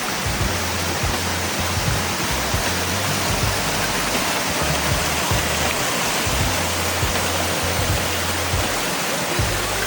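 Waterfall rushing, a steady, loud noise of falling water, with a low rumble that comes and goes underneath.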